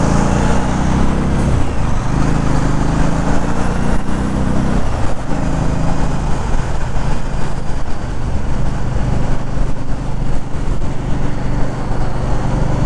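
Motorcycle engine running at freeway speed, a low drone under steady rushing wind noise on the microphone; the engine note dips for a moment about five seconds in.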